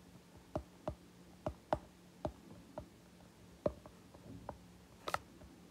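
Stylus tip tapping on a tablet's glass screen while handwriting: irregular light clicks, about one or two a second.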